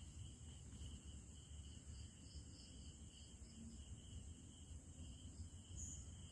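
Faint, steady trilling of night insects at two high pitches, over a low rumble.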